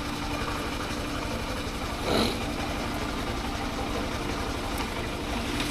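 Motorcycle engine idling steadily, with a short louder sound about two seconds in.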